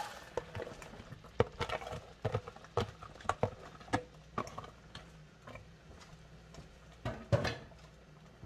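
Diced onion and bell peppers tumbling from a plastic container into a skillet of melted butter: irregular taps and pattering as the pieces drop and the container knocks against the pan, with another cluster of knocks about seven seconds in.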